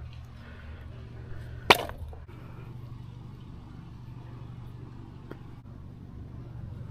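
A single sharp strike of a steel hatchet into wood about two seconds in, splitting kindling, over a steady low background rumble.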